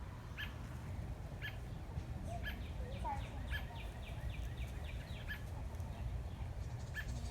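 A small bird chirping: short high chirps about once a second, with a quick run of descending notes in the middle. Under them runs a steady low rumble.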